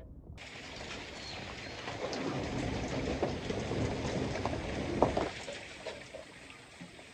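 Rain falling, an even hiss with scattered drips and taps that grows heavier in the middle and eases toward the end, with one sharper knock about five seconds in.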